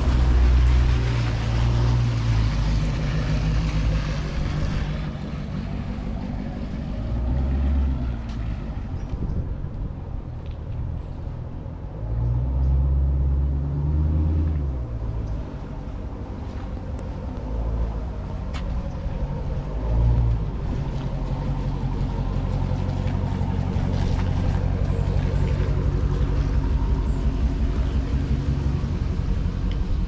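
Wind buffeting the camera microphone: low rumbles that swell and fade in gusts, over a steady hiss that is strongest in the first few seconds.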